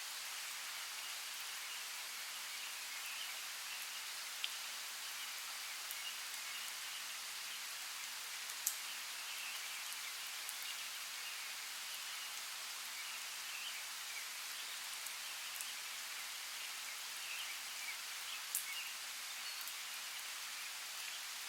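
Steady rain falling in a rainforest, an even hiss with three louder drops landing close by; the loudest comes about nine seconds in.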